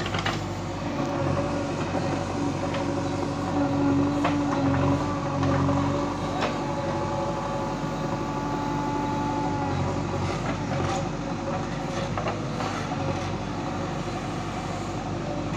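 JCB 3DX backhoe loader's diesel engine running under load while the backhoe arm digs and lifts mud. A steady whine holds for several seconds in the first half, and there are scattered knocks.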